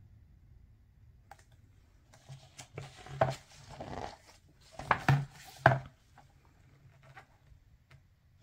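A page of a hardcover picture book being turned and pressed flat by gloved hands: paper rustling for a few seconds, starting about two seconds in, with several sharp snaps of the page.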